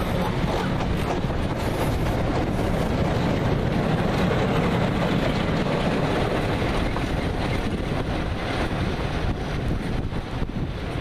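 Passenger coaches and a trailing Class 47 diesel locomotive rolling past on the rails, a steady rumble that eases slightly as the train draws away, mixed with wind buffeting the microphone.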